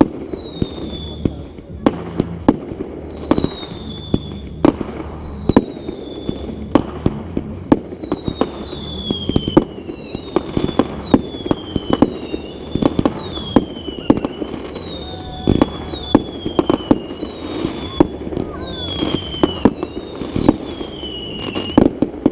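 Fireworks display: a rapid string of sharp bangs and bursts, mixed with whistling shells whose high whistles fall in pitch, about one a second.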